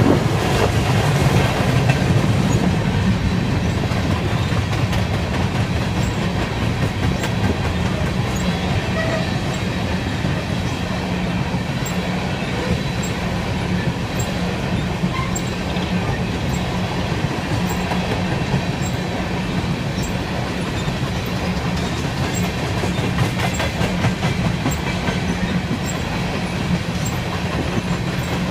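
A freight train's empty coal gondolas rolling past at steady speed: a continuous rumble with the clickety-clack of steel wheels over the rail joints.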